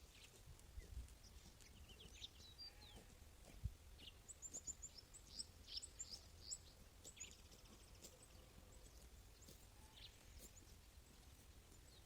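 Faint outdoor ambience with small birds chirping in quick, high, short calls, busiest in the middle, over a low, steady rumble.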